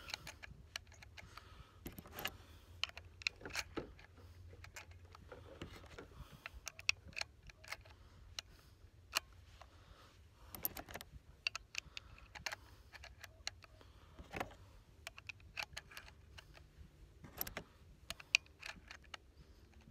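Irregular small metallic clicks and clinks of .38 Special cartridges being pushed one at a time through the loading gate into the tube magazine of a Marlin 1894 lever-action rifle.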